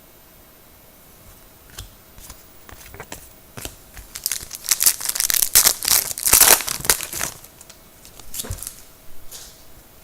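A trading card pack's wrapper crinkling and being torn open by hand: scattered crackles at first, then a loud stretch of tearing and crinkling in the middle, and a few more crinkles near the end.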